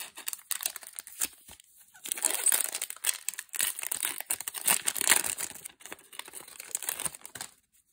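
The foil wrapper of a Magic: The Gathering draft booster pack crinkling and tearing as it is ripped open and the cards are slid out. A few light taps come first, then dense crackling for about five seconds, starting about two seconds in.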